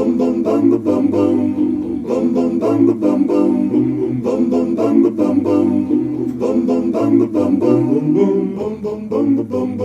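Background music: a song with a steady beat and plucked-string accompaniment.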